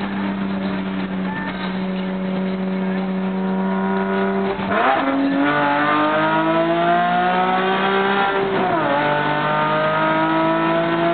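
Nissan 370Z's 3.7-litre V6, breathing through Stillen headers and catalytic converters with no mufflers, heard inside the cabin: a very loud, raspy engine note. It holds a steady pitch for about four seconds, drops as the car upshifts, climbs, then drops again at a second upshift near eight and a half seconds and climbs once more under hard acceleration.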